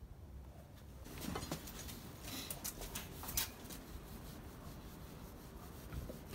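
A knife slicing through raw pork neck and scraping on a wooden cutting board as a strip of fat is trimmed off: a run of soft scrapes and clicks starting about a second in and easing off after about three and a half seconds.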